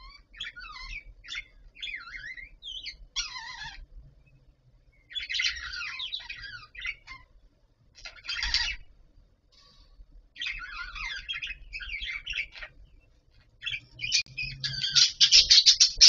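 Budgerigars chattering: bursts of warbling and quick chirps with short pauses between them, ending in a louder rapid run of chirps.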